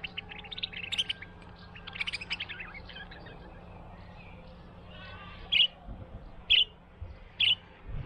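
Budgerigar chirping: quick runs of twittering chirps in the first few seconds, then three loud, short calls about a second apart near the end.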